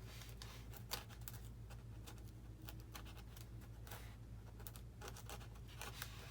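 Faint scratching and scattered light clicks of hand work on the foam wing of an RC model plane, over a low steady hum.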